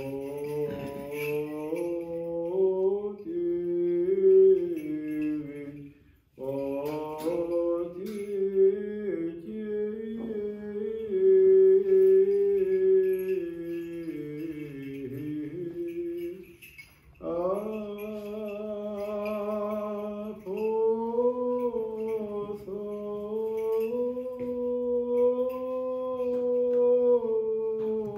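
A man's voice chanting Greek Orthodox liturgical chant solo, in long melismatic phrases with held notes, pausing briefly for breath about six and seventeen seconds in.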